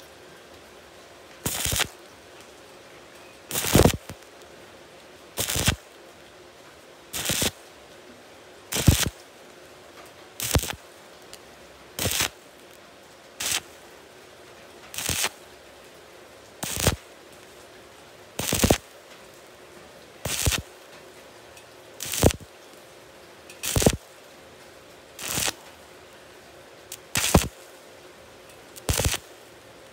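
Stick (arc) welding electrode struck in short bursts, about one every second and a half to two seconds, seventeen times, each arc held only briefly before breaking. This is a stop-start stitch technique that lays overlapping weld puddles one at a time on thin galvanized steel sheet.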